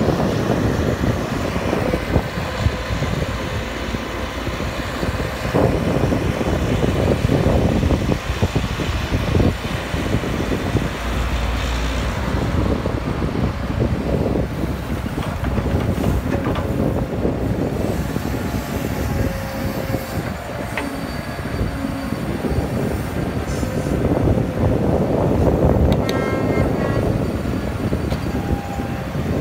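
Caterpillar E120B hydraulic excavator running under load as it digs soil and dumps it into a dump truck. The engine drones and surges with each dig and swing, with scattered knocks of the bucket and a brief high whine near the end.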